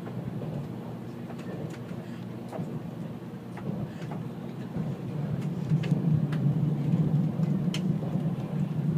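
Steady low rumble of a Shinkansen bullet train running, heard from inside the passenger cabin. It grows louder about halfway through, with scattered faint clicks over it.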